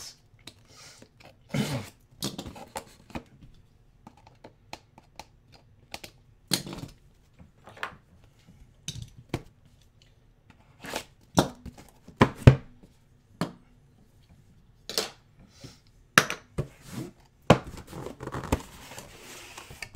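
Hands handling a cardboard box: scattered taps, knocks and scrapes on the box, with a few louder knocks near the middle and a rustling slide near the end as the lid is lifted off.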